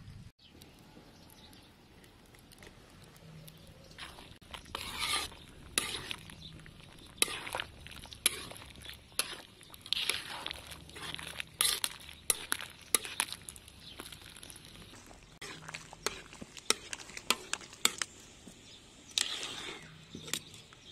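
Wire-mesh strainer knocking and scraping against a metal wok while boiled pork liver slices are scooped out of the broth: irregular sharp clinks and scrapes, starting about four seconds in.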